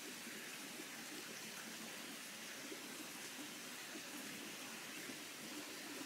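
Faint, steady rushing of water from a creek or waterfall, with no distinct events.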